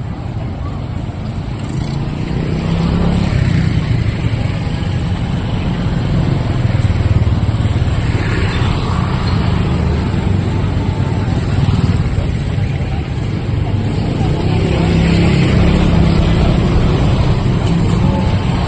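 Road traffic going by: vehicle engines rumbling, swelling and fading as they pass, over a steady street hum.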